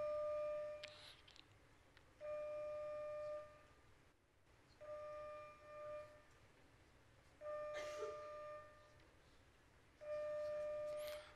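Electronic beep: a steady mid-pitched tone lasting about a second, repeating every two and a half seconds, five times.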